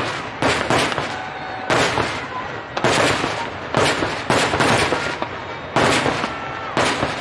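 Aerial firework shells bursting in quick succession: about a dozen sharp bangs, one or two a second at uneven spacing, each trailing off before the next.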